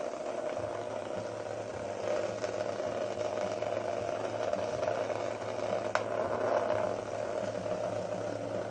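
Two small vibrating bug toys, cheap knock-offs of the Hexbug Nano, buzzing and rattling as they skitter across the bottom of a plastic laundry basket: a steady whirring hum with a sharp tick about six seconds in.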